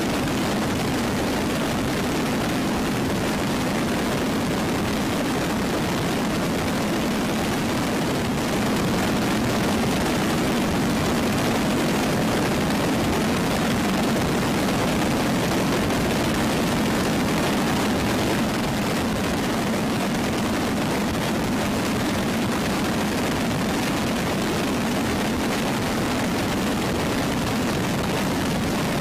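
Steady, even drone of aircraft engines and rushing air in flight, a little louder between about 9 and 18 seconds in.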